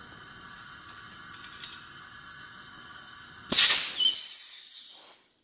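Compressed air hissing faintly as it leaks past the piston rings of a Pontiac 400 V8 cylinder held under shop air, a normal small leak through the ring end gaps that shows the rings are already sealing well. About three and a half seconds in, a loud rush of air as the air line is let go, fading over about a second and a half.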